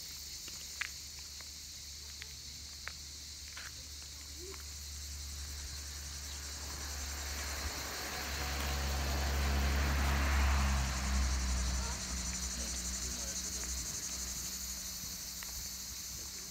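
Cicadas buzzing in the trees, a steady high-pitched drone. Around the middle a low rumble swells and fades away, leaving a faint low hum.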